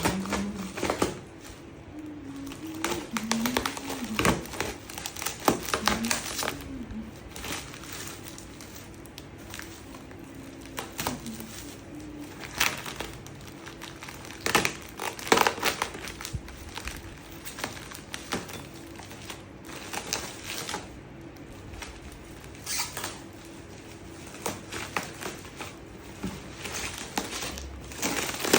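Unboxing sounds: a cardboard box and its plastic packaging being handled and opened, with irregular crinkling, rustling and sharp taps and clicks.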